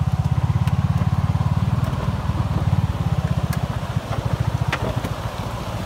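Engine of a Mule utility vehicle running with a steady low throb that slows and softens from about two seconds in. A couple of light clicks are heard over it.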